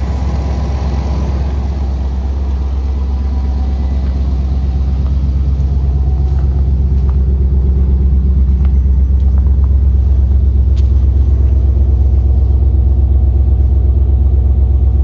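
Chevrolet Suburban engine idling steadily just after a cold start, growing slightly louder partway through. Under the idle is a sound that the owner wonders might be timing chain rattle, though he can't tell.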